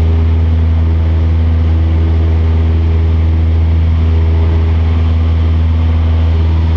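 Cessna 172's piston engine and propeller running steadily in flight, heard inside the cabin as a loud, even low drone with no change in pitch.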